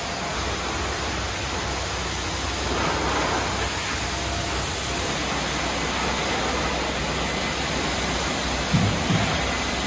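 High-pressure wand at a self-service car wash spraying soap foam onto a car: a steady hiss of spray with a low hum underneath.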